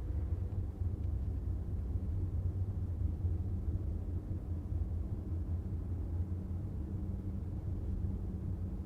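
Steady low rumble of a car driving on a city street, the engine and road noise heard from the car.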